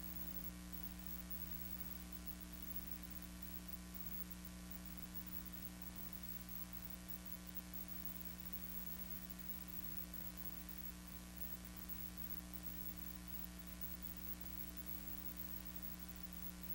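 Steady electrical hum and hiss with no other sound: the empty soundtrack of an old film transfer.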